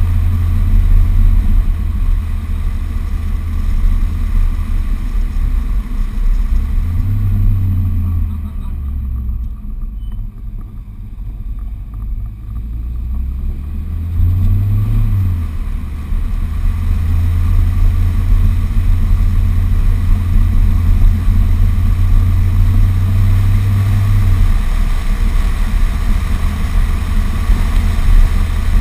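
A car driving on a twisty road, heard from a camera on its outside: a low engine hum with wind and road noise. The engine note swells twice, about a quarter and half way through, with a quieter stretch between as it eases off, then runs steadily.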